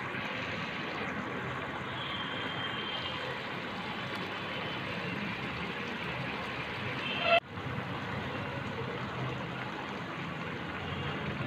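Pan of prawn curry simmering on an induction cooktop: a steady bubbling hiss. About seven seconds in, a brief swell of sound cuts off abruptly.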